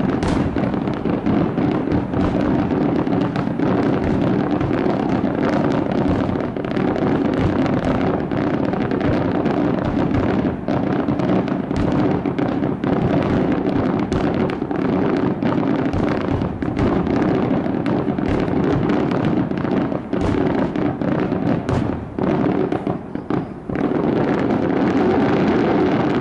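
Fireworks display going off in a loud, dense barrage: bang after bang in quick succession, overlapping into an almost continuous rumble.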